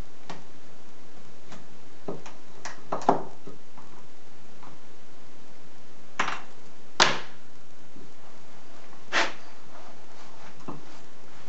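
Scattered short, sharp clicks and taps of small pliers and a cast pewter lamp part knocking on a wooden bench pin, about a dozen in all and irregular, the loudest about 3, 6, 7 and 9 seconds in, over a steady hiss.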